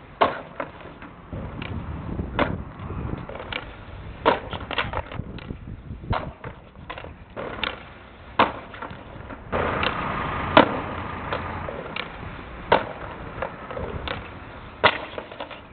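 Skateboard wheels rolling over paving, broken by many sharp clacks of the board striking the ground and the concrete ledge as tricks are tried, a few of them loud.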